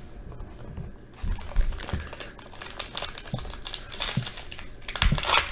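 Foil wrapper of a trading card pack crinkling and crackling as it is handled, with a few soft knocks, the crackle loudest and densest about five seconds in.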